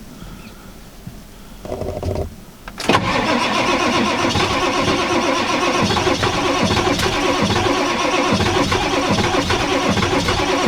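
The starter of a 1995 Ford F-350's 7.3L Powerstroke turbo-diesel V8 cranks the cold engine, starting suddenly about three seconds in and turning over steadily without catching. It is a hard cold start: the truck has sat frozen, and the owner thinks not all the glow plugs are working and that it needs plugging in.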